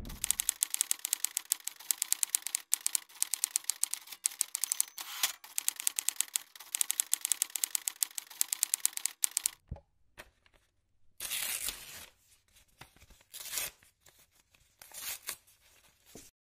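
Rapid clicking sound effect, several sharp clicks a second in the manner of typewriter keys or a camera shutter, which stops about nine and a half seconds in. Scattered short bursts of static-like noise follow.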